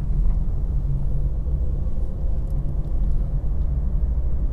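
Steady low rumble of a vehicle moving along a road, with no sudden events.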